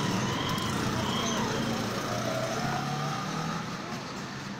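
Steady street noise with indistinct voices of the people gathered around.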